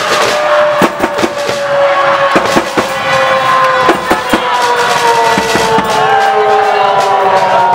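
Football supporters' crowd noise in a stadium stand: a long held tone slides slowly down in pitch over a dense din, punctuated by irregular sharp bangs.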